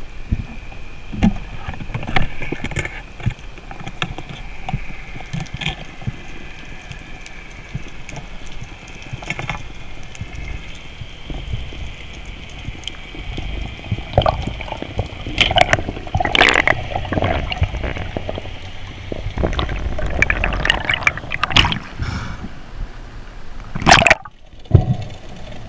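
Water sloshing and gurgling around a free diver's action camera, with louder splashy bursts about halfway through and again near the end, over a faint steady whine.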